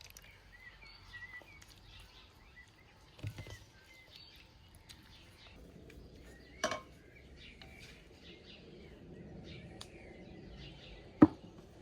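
Small birds chirping over quiet outdoor background noise, with a few scattered knocks; the loudest, a sharp knock, comes near the end.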